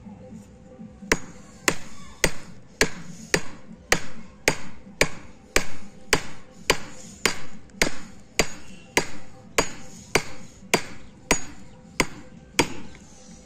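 A wood chisel driven into a timber beam by steady hammer blows, about two a second, cutting out a V-shaped notch with chips splitting away.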